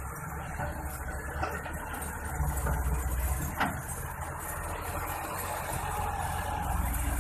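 Diesel engines of Massey Ferguson 385 tractors and a wheeled excavator running steadily, a tractor pulling a loaded trolley past close by and growing a little louder near the end. A brief squeak cuts through about halfway.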